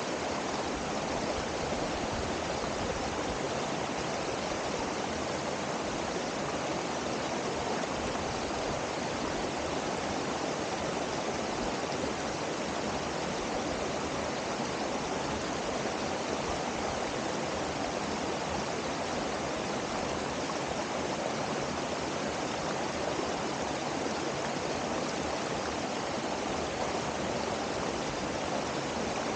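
Mountain waterfall rushing steadily, an even roar of falling water.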